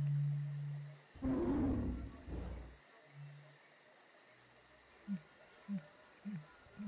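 End-screen sound effects: a low held tone stops about a second in, followed by a deep animal roar lasting under two seconds, over a steady background of fast cricket-like chirping. Near the end, short low plucked notes begin, about two a second.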